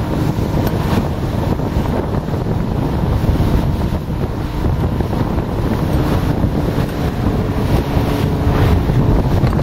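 Wind buffeting the microphone on a speeding motorboat, over the steady drone of its engine and the rush of the wake.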